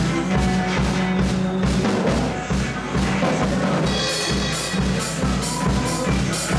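Mapex drum kit played along with a rock song: bass drum and snare on a steady beat, and about four seconds in, regular cymbal strokes come in on top.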